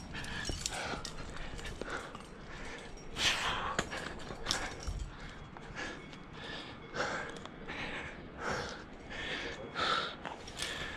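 A rock climber breathing hard under strain, with sharp huffing breaths about once a second.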